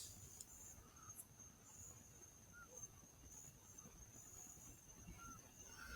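Faint, steady high-pitched cricket trilling, with a few soft chirps, in an otherwise near-silent night.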